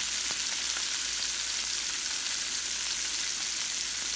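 Strips of green and red bell pepper sizzling steadily in hot olive oil in a frying pan, just after going in.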